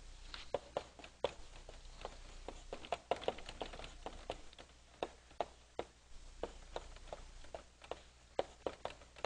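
Chalk tapping against a blackboard as words are written out: a quick, irregular run of sharp little clicks.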